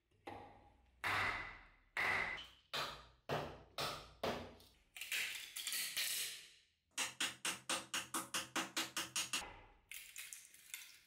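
A Bowie knife blade chopping into a wooden board. First come sharp whacks about once a second and a longer noisy stroke about five seconds in, then a fast run of about a dozen quick chops, and a few lighter hits near the end.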